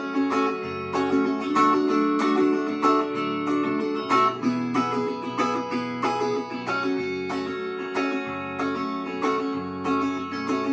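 Instrumental passage of a Russian rock song: guitar strumming chords in an even rhythm, about two strokes a second, over sustained lower notes, with no singing.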